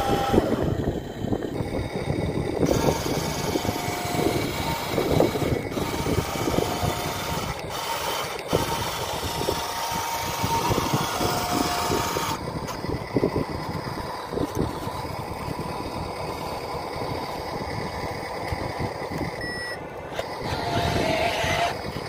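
Radio-controlled model dump truck at work as its bed tips sand, with a steady rumble and knocking and short electronic beeps every few seconds, like a reversing alarm.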